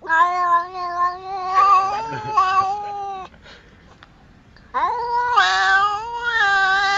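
A cat yowling: two long, drawn-out wavering calls, the second starting about five seconds in.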